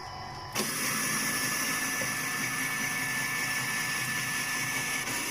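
An electric kitchen appliance switches on about half a second in and runs with a steady, even whir.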